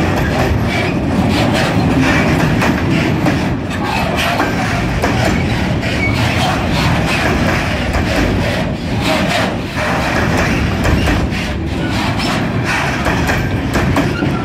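Freight wagons rolling slowly past close by: a steady rumble of steel wheels on the rails, with irregular clanks and rattles from the wagons.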